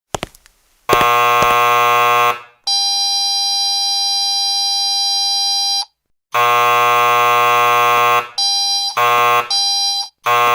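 Loud electronic alarm-like buzzer tones that start and stop sharply. A long buzz comes about a second in, then a steady tone held for about three seconds, then another long buzz, and near the end a run of short repeated blasts.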